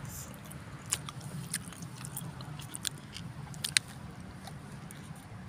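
A person eating bakso (meatball soup) from a bowl with a spoon: chewing, with a few short sharp clicks over the first four seconds, over a steady low hum.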